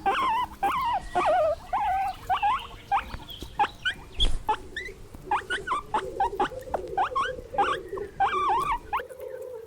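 Guinea pig squeaking: a quick, uneven run of short high squeaks and chirps, some sweeping up and some down. A steady low hum joins in about halfway through.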